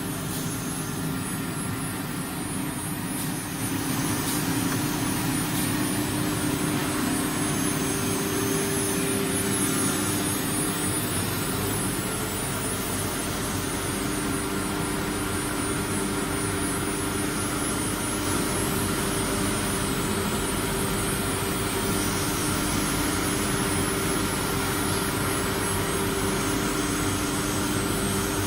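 CNC wood router running: a steady machine hum with constant whining tones, which gets louder about four seconds in and then holds steady.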